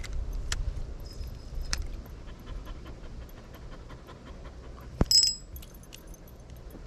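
Dog panting, with a few light clicks and one sharp click with a brief high ring about five seconds in.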